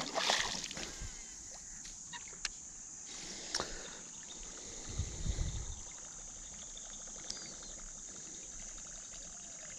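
Water splashing and trickling around a jon boat, loudest right at the start, with a few light knocks and a low thud about five seconds in, over a steady high-pitched insect drone.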